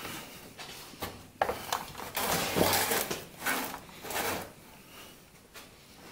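Handling noises of a plastic bucket and a leaf blower being moved on a sheet-metal workbench: a sharp knock, then a longer scrape and a few shorter bumps, quieter near the end.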